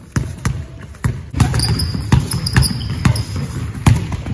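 A basketball dribbled hard on a hardwood gym floor: sharp bounces at an uneven, changing pace, about eight in all. Sneakers give a brief high squeak on the court in the middle.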